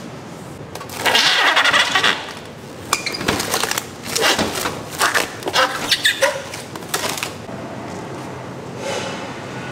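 Clear plastic film pulled and wrapped around a plate of eel fillets: a one-second rushing tear about a second in, then a run of crinkling and crackling as the film is pressed down.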